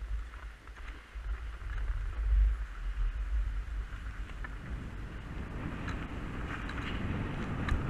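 Wind buffeting the camera microphone while a skier runs downhill, with the skis hissing and scraping over packed snow; the scraping grows louder over the last few seconds.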